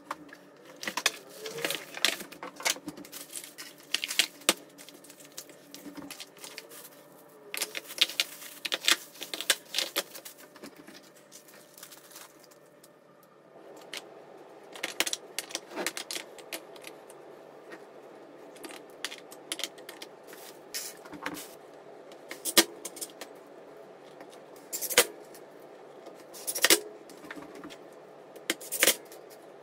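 Unboxing and handling noises: a cardboard box and plastic packaging rustling and crackling, then hard plastic caster wheels of a folding hand-truck platform clacking as they are picked up and set down, and small metal screws jingling in a hand. A faint steady hum comes in about halfway through.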